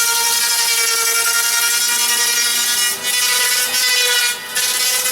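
Electric hand planer running with a steady high whine as it shaves the ridges off an EPS foam surfboard blank. The sound dips briefly about three seconds in and again a little past four seconds.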